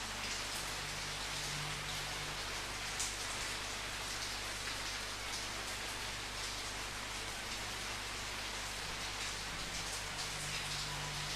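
Steady rainfall, with individual drops pattering on a surface.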